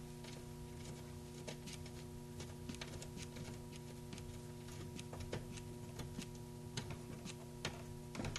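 A 1/4-inch drive ratchet with a 6 mm socket clicking in quick, irregular runs as it backs out a screw. A steady electrical hum runs underneath.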